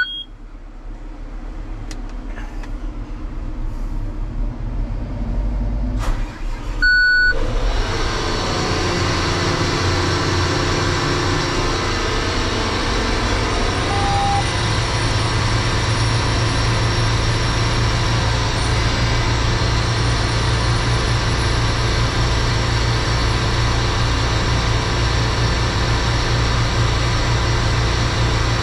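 John Deere combine with a corn head attached, heard from inside the cab. Cab alert beeps sound at the start and again about seven seconds in, while the machine spins up. It then jumps louder as the header drive engages, and it runs steadily so the oil can work through the row-unit chains and gearboxes.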